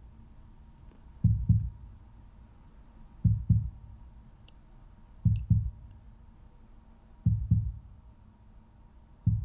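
Slow heartbeat, a low double thump (lub-dub) about every two seconds, five beats in all.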